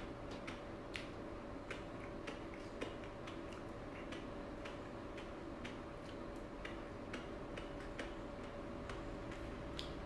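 Close-up chewing with soft, wet mouth clicks about twice a second, over a steady faint hum.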